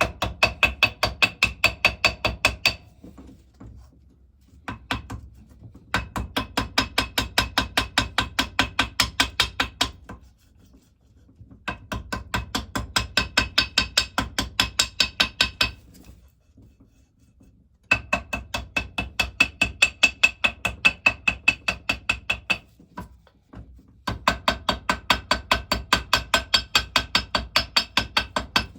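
Ball-peen end of a hammer tapping rapidly to cut out holes, about seven light ringing taps a second, in five runs of several seconds with short pauses between.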